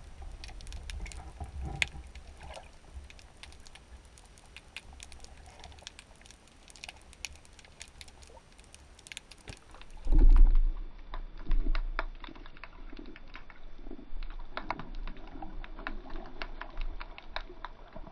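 Underwater sound picked up by a submerged camera: dense, irregular clicking and crackling over a low rumble of water. About ten seconds in, two loud low thumps, a second and a half apart, stand out above the clicks.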